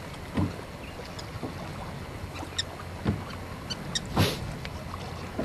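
Open-water noise around a bass boat: wind and choppy water against the hull. A few light clicks and knocks on the boat, the loudest about four seconds in.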